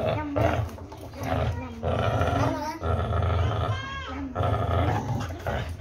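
Pit bull growling in a string of long stretches broken by short pauses, while it hangs by its jaws from a tire on a spring pole.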